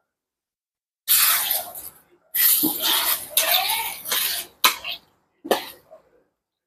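A person coughing in a series of harsh bursts: one about a second in, a longer fit in the middle, then two short coughs near the end.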